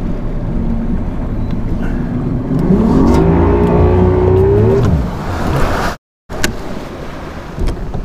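150 hp bass-boat outboard engine under hard throttle, its pitch rising for a couple of seconds, with wind and water rush. The engine note falls away about five seconds in, and the sound cuts out briefly soon after.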